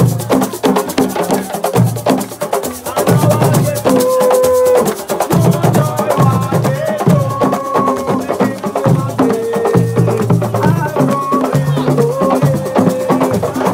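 A hand-drum percussion ensemble playing a fast, dense rhythm, with voices singing short phrases over the drumming.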